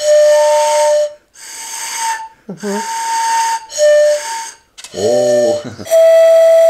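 A freshly made single-tube chipsan, a Komi end-blown flute cut from a hollow angelica stem, blown in about six breathy toots of roughly a second each that jump between a lower and a higher note. A short voice sound comes in about five seconds in.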